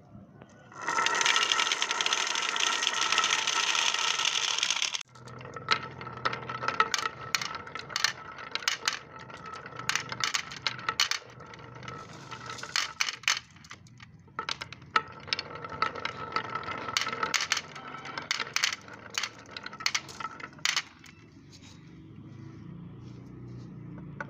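Marbles racing down a marble run: a dense rush of many marbles rolling together for a few seconds, then a long run of sharp clicks and clatters as they knock along the track. Near the end the clicking stops and only a low hum is left.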